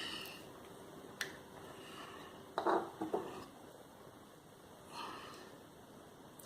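Quiet handling of small glass essential-oil bottles and a dropper: a sharp tick about a second in, then a couple of soft knocks near the middle, and a faint one near the end.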